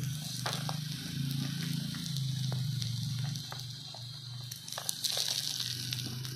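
Seasoned meat cooking over heat, with scattered crackling pops and a faint hiss, over a low steady hum.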